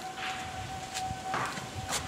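A steady high-pitched tone held on one unchanging note, with a few brief rustles of leaves and branches.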